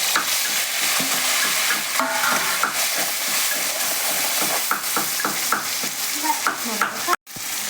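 Food sizzling as it fries in hot oil in a pan, stirred with a utensil that scrapes and knocks against the pan many times. The sound cuts out briefly near the end.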